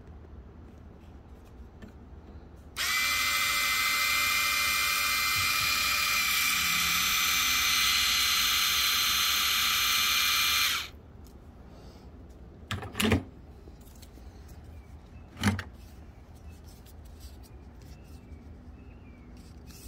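7.2-volt SprayMate Shower MAX spray gun's electric gear pump running for about eight seconds with a steady high whine while spraying, then cutting off. Two sharp clicks follow a couple of seconds apart.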